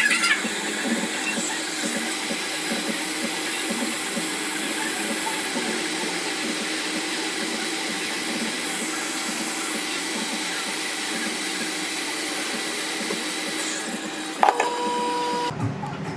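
Steady rushing air from a small blower, most likely a hot-air rework station or fume extractor on the repair bench. About fourteen seconds in comes a click and a short steady beep, and soon after, the rushing cuts off suddenly.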